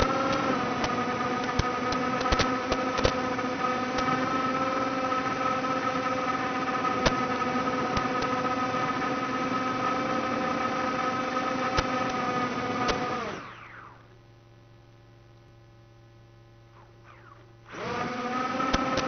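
The brushless 1104 4000kv motors and propellers of a micro FPV quadcopter, whining steadily in flight, with occasional sharp clicks. About two-thirds of the way in, the whine drops away quickly as the motors spin down and it goes quiet. About a second before the end the motors spin back up.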